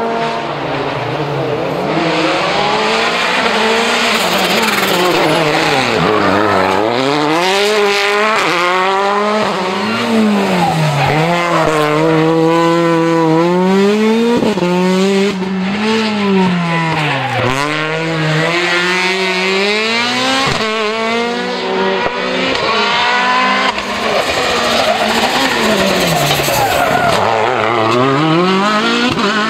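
World Rally Car turbocharged engine at full stage pace, its note climbing and dropping again and again as it is revved through gear changes and lifts off.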